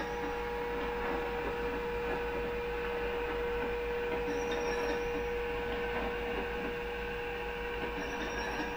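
Accurascale Class 92 model electric locomotive with factory-fitted DCC sound running with a container train: a steady electric hum from its sound decoder over the rolling noise of wheels on the track.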